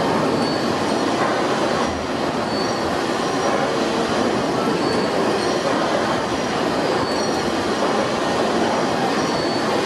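Fowler steam ploughing engine running: a steady, unbroken mechanical noise with a faint high squeal here and there.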